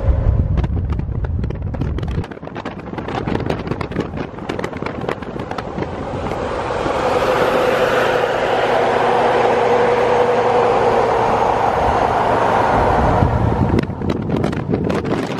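Highway wind and road noise from a moving vehicle, with a straight-piped Ford F-250 6.0 Powerstroke V8 diesel pickup driving alongside; the rushing exhaust and wind sound swells about six seconds in, holds, then drops off shortly before the end.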